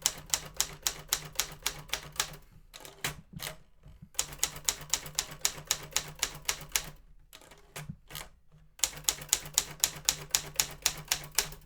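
1960 Consul Silent portable manual typewriter being typed on key by key: quick runs of sharp type-bar strikes, about five a second, in three stretches with short pauses and a few single strikes between them.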